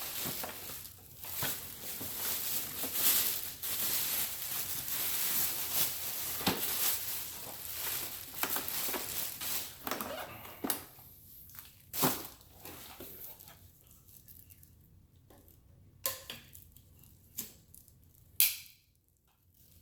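Packaging and plastic vacuum parts being handled: crinkling and rustling for about ten seconds, then scattered sharp clicks and knocks of hard plastic pieces, the loudest about twelve seconds in.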